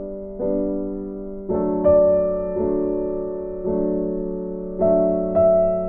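Background music: gentle piano chords, a new chord struck about once a second and fading away before the next.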